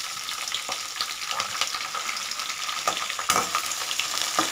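Freshly added sliced onions sizzling in hot oil in a wok while a perforated steel ladle stirs them. There are a couple of sharper ladle strokes against the pan in the second half.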